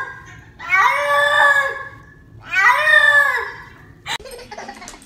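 A wet domestic cat, held in a bathtub, is yowling: two long drawn-out meows of about a second each, each rising and then falling in pitch, after the end of an earlier one.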